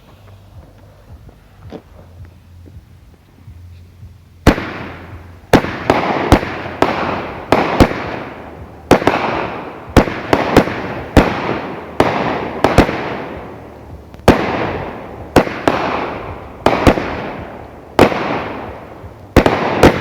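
A 16-shot 200-gram consumer fireworks cake (World Class "Charge") firing: after about four and a half seconds of low sound, a rapid, uneven string of sharp, loud bangs, often in quick pairs, each trailing off in an echoing rumble. These are the cake's hard-hitting salute-style breaks, still going at the end.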